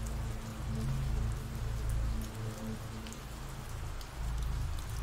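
Steady rain falling, an ambient rain recording, with a low rumble beneath it.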